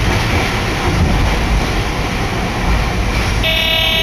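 Hakodate city streetcar running, heard from inside the car: a steady low rumble of wheels and running gear. A short pitched tone sounds near the end.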